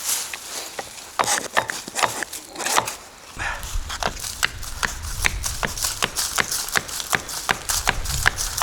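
A quick series of short, sharp crunches or knocks, uneven at first and then about two to three a second, with a low rumble coming in a few seconds in.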